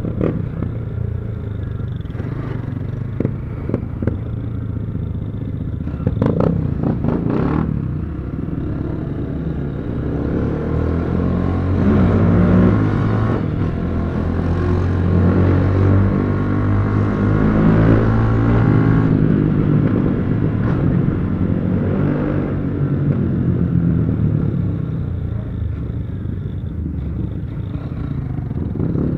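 Honda XRE single-cylinder motorcycle engine running on the road, revving up and down with its pitch rising and falling through the middle stretch. A few sharp exhaust pops come about six to seven seconds in.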